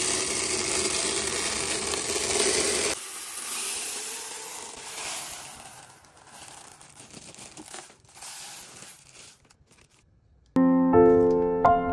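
Dried pulses pouring from a bag into a plastic container: a loud, dense hiss for about the first three seconds, then a softer pour with scattered clicks as mung beans go into another tub. Piano music comes in near the end.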